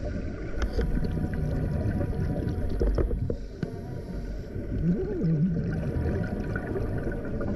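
Underwater noise picked up by a diving camera: a steady low rumble and hiss with scattered clicks and some gurgling, and a short wavering tone that rises and falls about five seconds in.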